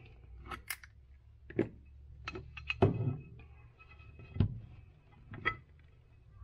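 Metal bait-mold plates being handled on a workbench as the soft-plastic crawfish mold is opened: a string of separate knocks and clicks, the loudest about three seconds in, over a low steady hum.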